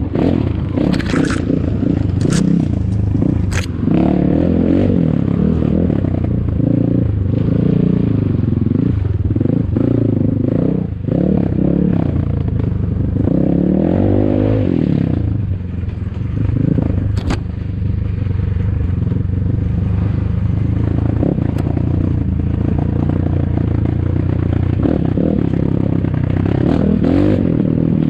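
ATAKI DR 250 enduro motorcycle engine running under load, its revs rising and falling again and again as it is ridden off-road, with a few sharp knocks and clatter over the top.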